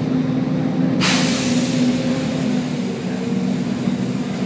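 Volvo B10BLE bus's six-cylinder diesel engine running steadily, with a sudden loud hiss of compressed air from the bus's air system about a second in that fades away over the next second or two.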